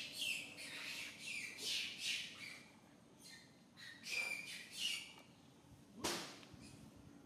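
Baby macaques squealing while play-fighting: a quick run of short, high-pitched cries that fall in pitch, a few more after a short lull, then one sudden louder sound about six seconds in.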